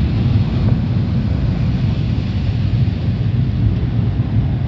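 Automatic tunnel car wash heard from inside the car's cabin: a steady low rumble with water spraying onto the car.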